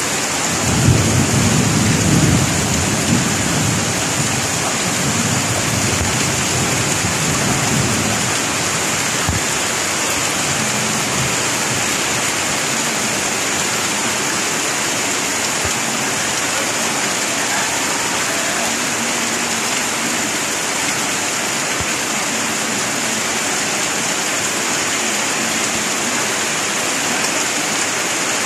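Steady rain falling on a wet paved yard, an even hiss, with low rumbling through roughly the first eight seconds.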